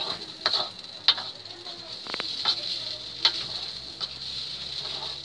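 Spatula scraping and clacking against a wok while fried rice sizzles in oil: irregular strokes roughly once a second over a steady frying hiss.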